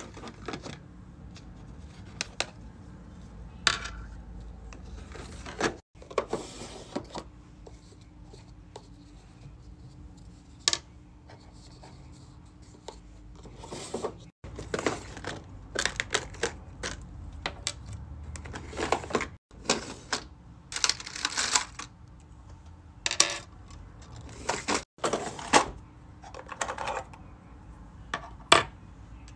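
Small clear plastic organizer drawers being slid open and shut, with metal key rings and hard keychain pieces clicking and clinking as they are picked out and set down on a desk. A faint steady hum runs underneath.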